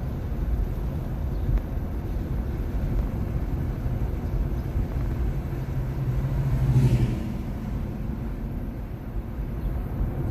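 Road and tyre rumble inside the cabin of a moving 2021 Nissan Leaf electric car, with no engine note. A steady low hum joins for a few seconds in the middle, and there is a brief louder swell about seven seconds in.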